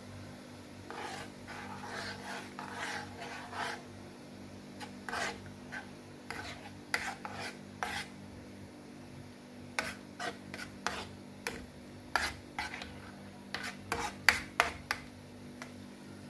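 A spoon scraping and stirring in a frying pan, working beaten egg into cooked tomato. It rasps steadily for the first few seconds, then makes a series of short sharp scrapes and clicks against the pan, the loudest near the end.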